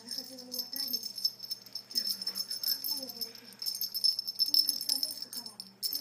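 Continuous jingling of small bells, with a tune underneath.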